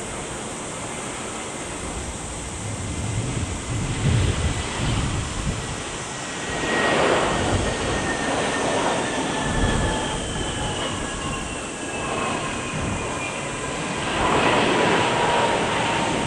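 Jet airliner's engines running as it passes: a rushing noise with thin whines that glide slowly down in pitch, swelling about seven seconds in and again near the end.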